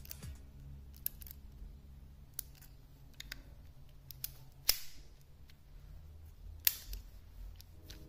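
Push-button combination door lock being worked by hand: a string of light clicks from its buttons and knob, with two sharper, louder clicks about halfway through and again near the end.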